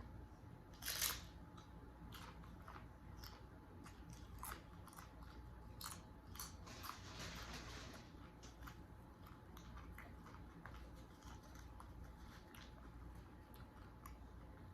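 Tortilla chips of nachos being bitten and chewed, with one loud crunch about a second in and a cluster of crunching near the middle, scattered with small clicks.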